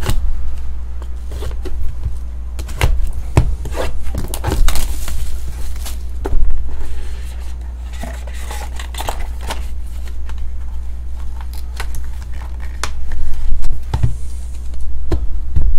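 A cardboard trading-card box being opened by hand: scraping and tapping of the card stock as the seal is cut and the lid is lifted, with a run of short clicks and knocks, busiest a few seconds in and again near the end as a card comes out of the foam insert. A steady low hum lies under it all.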